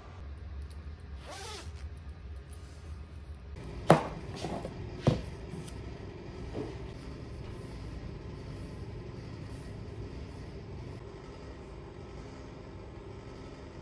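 Two sharp knocks about a second apart, with a few lighter clicks, as a drink cup and a chip can are set down on a table, over a steady low hum.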